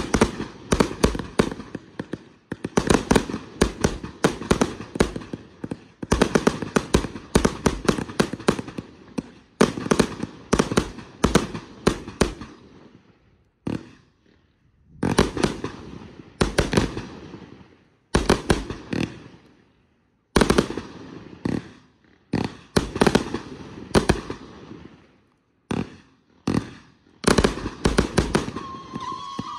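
Multi-shot consumer firework cake firing: fast runs of shots launching and bursting overhead, one after another. A few short pauses fall between the volleys.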